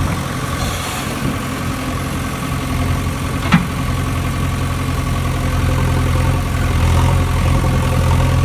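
An engine idling steadily, with one short sharp click about three and a half seconds in.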